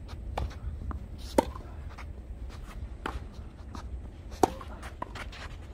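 Tennis rally: two loud, sharp racket-on-ball strikes about three seconds apart, with quieter taps and clicks from ball bounces and footsteps between them.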